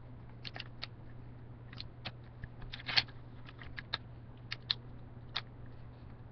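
A sheet of paper being folded and creased by hand: irregular small crackles and taps, one louder crackle about three seconds in, over a steady low hum.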